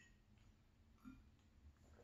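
Near silence: room tone, with one faint small sound about a second in.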